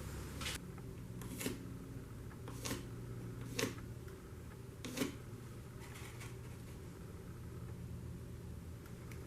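A few separate light knocks and clicks of small parts and tools being handled on a workbench, over a low steady hum.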